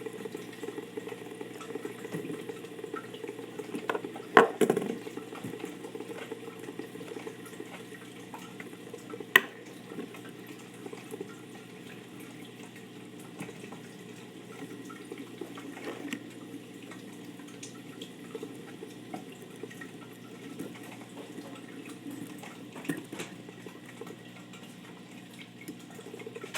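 Fidget spinners being stacked by hand: a handful of sharp clicks and knocks, the loudest about four seconds in and another about nine seconds in, over a steady hiss.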